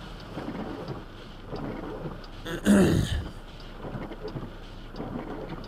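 Low steady background noise with one short, loud vocal sound from a person about two and a half seconds in.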